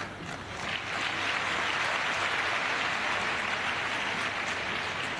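Audience applauding, swelling over the first second, holding steady, then thinning slightly near the end.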